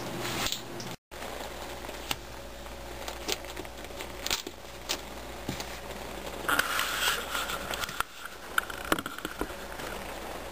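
Light clicks of plastic poker chips and rustles of playing cards being handled at a table, over a low steady hum, with a short dropout to silence about a second in.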